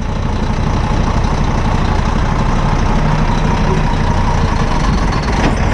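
Heavy truck diesel engine running steadily at a low idle-like rumble.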